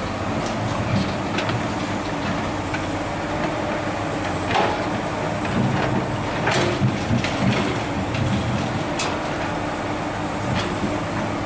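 Komatsu PC200 hydraulic excavator's diesel engine running steadily under load, with its steel bucket knocking and scraping against broken rock as it digs and prises slabs loose. Several sharp clanks of stone on steel stand out, the loudest about halfway through.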